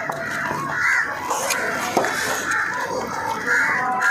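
Crows cawing, a call about every second.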